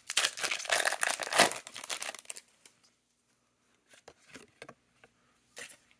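A foil Pokémon 151 booster pack wrapper crinkling and tearing open for about two seconds, followed by a few faint rustles as the cards are handled.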